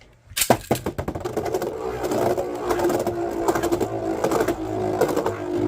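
Two Beyblade spinning tops launched into a plastic stadium about half a second in, with a burst of sharp clicks, then spinning with a steady whir and frequent clicking as they knock against each other and the stadium.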